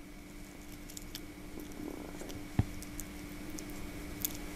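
Light clicks and ticks of small plastic and metal parts of a dismantled miniature synchronous motor being turned over and fitted together in the hands, with one sharper click about two and a half seconds in, over a faint steady hum.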